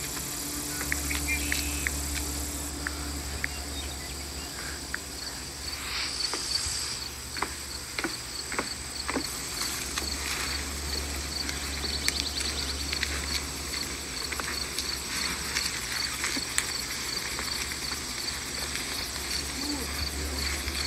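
Insects chirping in a steady rhythm, about three high chirps a second, over a low steady hum, with scattered faint clicks.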